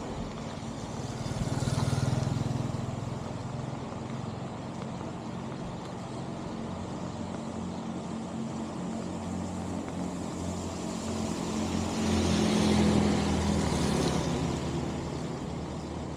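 Road vehicles passing, one about two seconds in and another, longer one near the end, over a steady engine hum.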